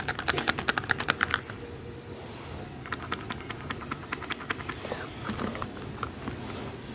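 A container of ear medicine rattled in the hand: rapid clicking, about ten clicks a second, in two runs of a second or so with a pause between.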